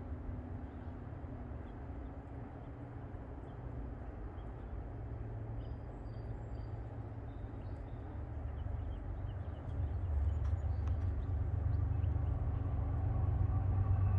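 Low rumble of approaching Norfolk Southern diesel locomotives, growing louder over the last few seconds, with a few faint bird chirps.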